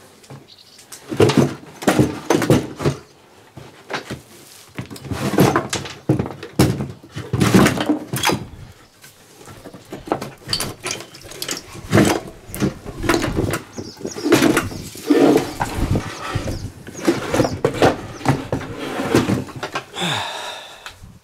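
Irregular knocks, thuds and scrapes of a vintage sinusoidal unit's stuck inner chassis being worked loose and pulled out of its wooden carrying case, ending in a longer scrape as it slides free.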